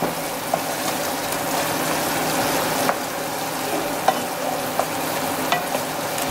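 Chicken pieces sizzling in sauce in a nonstick frying pan: a steady frying hiss, with a few light clicks and scrapes of a wooden spatula stirring them.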